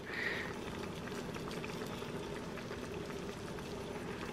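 Broth simmering and sizzling steadily in the hot stainless steel inner pot of an Instant Pot, on the leftover heat of its sauté setting, which has just been switched off.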